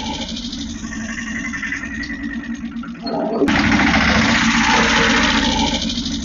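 Small motor of a homemade toy tractor whirring steadily with a fast gear rattle as the tractor drives, louder from about three seconds in.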